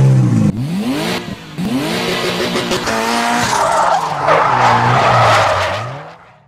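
Car engine sound effect: the engine revs up and down three times. Then comes a long tyre screech over the engine, which fades out near the end.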